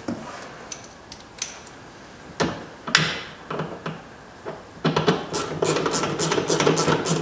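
A few metal knocks inside a car door, then from about five seconds in a rapid run of ratchet clicks as a ratchet wrench tightens the bolts clamping the window glass to the power window regulator.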